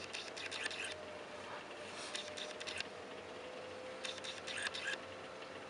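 Siemens ExtraKlasse S16-79 washing machine running quietly, a faint steady motor hum with a soft rattle or patter from the turning drum that comes back about every two seconds. There is no drone from the drum bearings, which the seller takes as a sign that they are in excellent condition.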